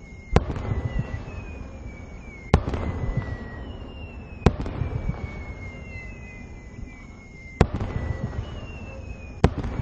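Aerial firework shells bursting overhead: five sharp bangs spaced two to three seconds apart, each followed by a crackle and a low rolling rumble.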